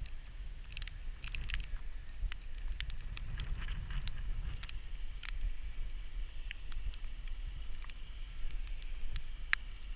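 Wind buffeting the microphone with a low rumble, mixed with scattered irregular crackling clicks.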